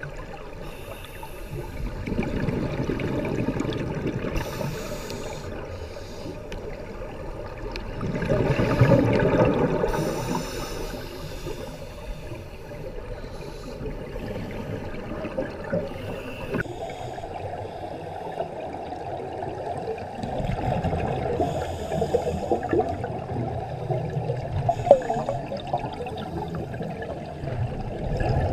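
Underwater sound of scuba divers breathing through regulators, with surges of exhaled bubbles rushing and gurgling several times. The loudest surge comes about a third of the way in.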